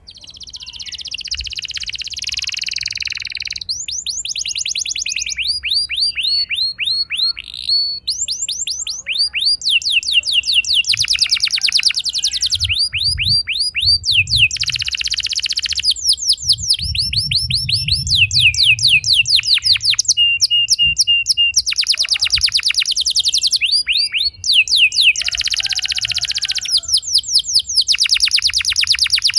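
Domestic canary singing a long, unbroken song of trills and rolls. It switches between very fast rolling trills and slower series of repeated falling notes.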